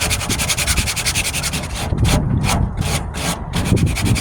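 Coarse sandpaper being rubbed by hand over cured Bondo body filler on a steel tailgate, in quick back-and-forth strokes with light pressure to level the filler flat.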